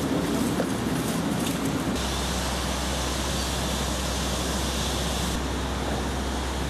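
Steady rushing outdoor background noise with a low hum, its character changing abruptly about two seconds in.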